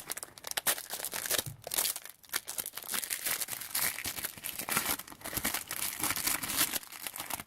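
Foil trading-card booster pack being torn open and crinkled by hand: a stream of irregular crackling and crinkling.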